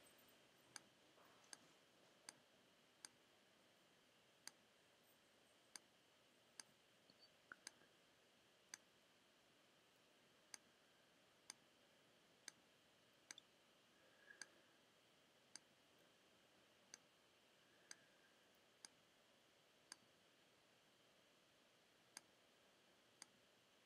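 Faint single computer mouse clicks, spaced irregularly about a second apart, each one placing a point along an outline in embroidery digitizing software.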